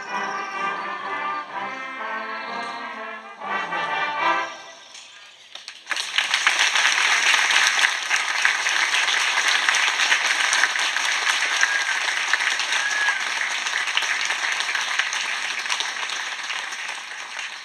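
A brass ensemble plays the closing bars of a piece, which ends about four and a half seconds in. About a second later the audience breaks into applause, louder than the music, which tails off near the end.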